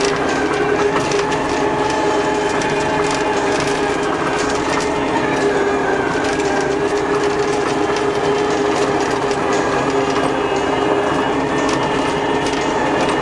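Takeuchi TL150 track loader running steadily as it works, its engine and hydraulics giving a steady whine with a constant clatter of small rattles and clicks.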